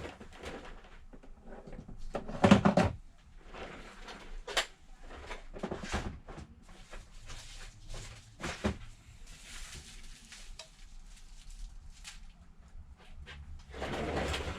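Scattered knocks, clicks and light scrapes of small repair tools and tablet screen parts being handled and set down on a workbench, the loudest knock about two and a half seconds in.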